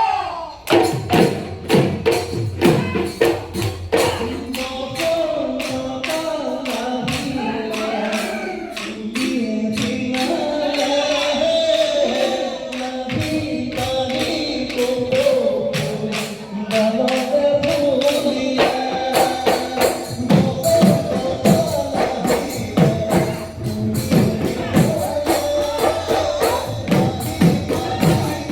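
Music: a song with singing over a quick, steady tambourine beat.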